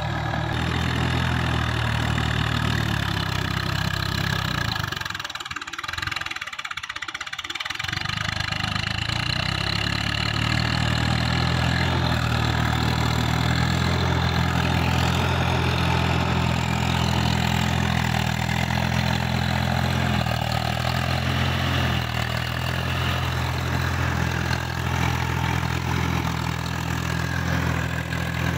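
Tractor diesel engine running steadily as it pulls a rotary tiller through a flooded paddy field; the engine hum drops away briefly about six seconds in, then comes back.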